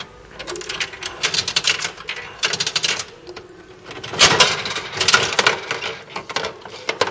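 Gashapon capsule-toy machine's dial being turned by hand, its ratchet clicking in quick runs, with the loudest clatter about four seconds in as the plastic capsule drops into the chute.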